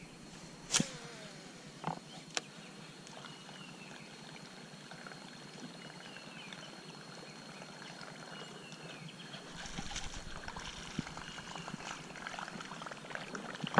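Faint outdoor ambience: a steady high insect-like drone, a short falling bird whistle repeated every few seconds, and three sharp clicks in the first couple of seconds. A soft low noise rises about ten seconds in.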